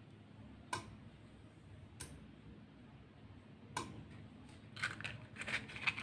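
Faint sharp clicks over quiet room tone: a few single clicks more than a second apart, then a quick run of small clicks near the end.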